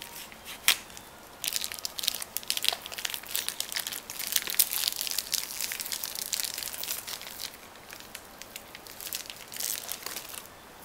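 Plastic packaging bag crinkling and crackling as it is cut open with a knife and peeled off a raw duck breast, with one sharp click about a second in.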